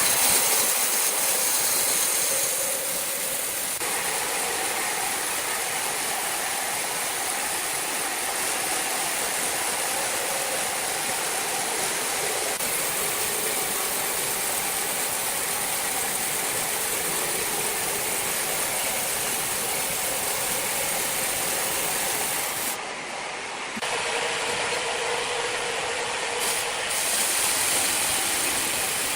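Sawmill machinery running, a steady, dense mechanical noise with a faint hum, changing abruptly a few times.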